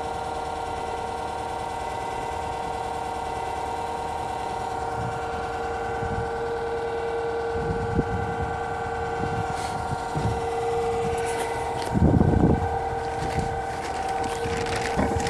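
Motenergy brushless DC motor on a square-wave controller running steadily under load, a constant whine of several pitches; the square-wave drive makes the motor noisier than a sine-wave controller would. A brief low rumble about twelve seconds in.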